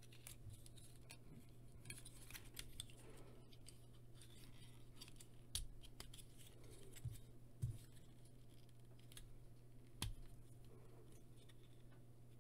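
Small hard plastic clicks and rattles from a Transformers Cyberverse Dinobot Slug action figure being handled and transformed. A few sharper clicks come from its tight joints being forced into place.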